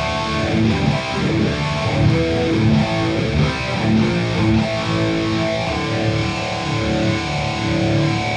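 Electric guitar played through a Boss Katana Gen 3 2x12 amp: a continuous riff of picked notes, with longer held notes in the second half.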